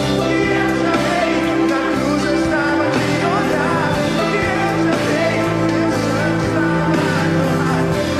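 Live rock band music played through a concert sound system: electric guitar, drums and a singing voice.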